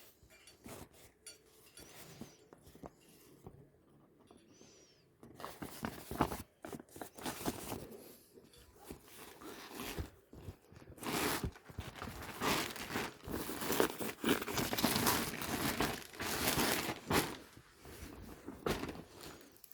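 Packaging being handled and crinkled: faint small clicks and rustles at first, then from about five seconds in a long spell of loud, dense crinkling and rustling that eases off near the end.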